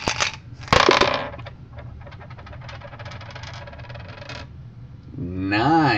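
Two dice tipped out of a dice cup onto a wooden desk: a loud clatter about a second in, then a run of lighter clicks as they tumble and settle.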